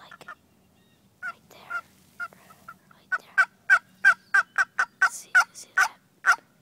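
Turkeys calling: a few scattered short calls, then a quick, loud run of short sharp calls, about three a second, through the second half.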